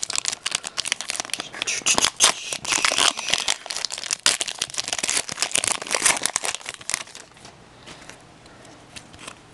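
Hockey card pack wrapper being torn open and crinkled by hand, a dense crackling that dies down after about seven seconds.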